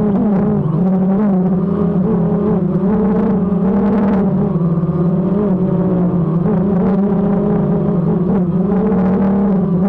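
DJI quadcopter's motors and propellers buzzing steadily, picked up by the GoPro mounted on the aircraft; the pitch wavers slightly up and down as the motors adjust in flight.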